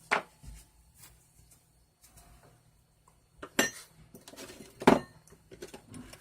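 Metal clicks and clinks from a Craftsman ratchet head and small metal parts being handled while its retaining pin is fitted back in. There is a sharp clink near the start, more about three and a half and five seconds in, then a quick run of small clicks near the end.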